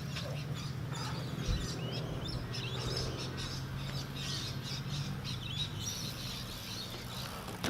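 Birds chirping and calling again and again, with a steady low hum underneath.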